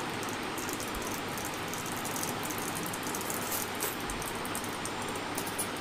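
Tempering seeds frying in a little hot oil in an iron kadai: a steady low sizzle with scattered small crackles and pops.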